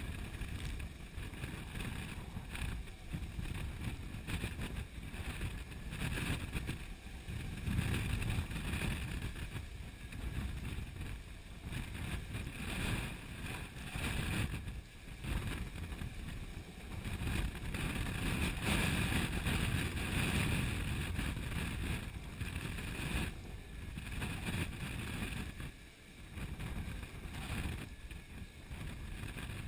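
Strong wind of 35 to 45 knots buffeting the microphone and blowing through the rigging, with sea water rushing and splashing along the hull of a Sun Odyssey 349 sailing yacht in rough seas. The noise rises and falls with the gusts and waves.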